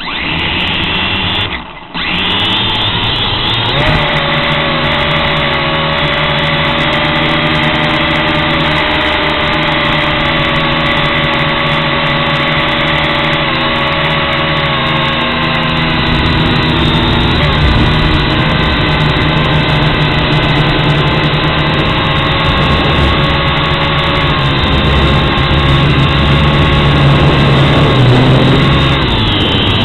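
WLtoys toy quadcopter's small electric motors and propellers whining loudly, heard up close from its own onboard camera. It starts abruptly, dips for a moment about two seconds in, then runs steadily with several held whining tones over a low hum as it climbs.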